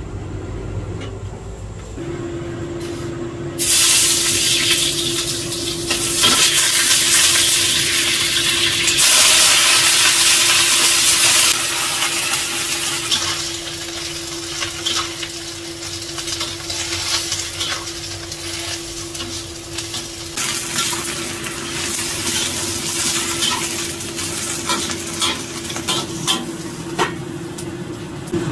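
Cabbage being stir-fried in a wok: a loud sizzle starts about four seconds in as food hits the hot oil, swells twice more, then dies down to a softer frying hiss, with a metal ladle scraping and clinking against the wok. A steady range-hood fan hum starts about two seconds in, and a metal lid clinks onto the wok near the end.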